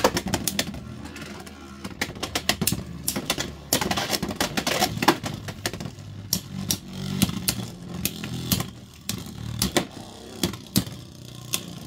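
Two Beyblade X battling tops spinning in a clear plastic stadium, clashing again and again with quick sharp clacks of plastic and metal over a steady low whir of spinning.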